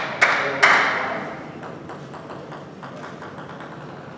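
Table tennis ball bouncing about a dozen times, the bounces coming quicker and quicker. It follows a short loud burst of noise near the start.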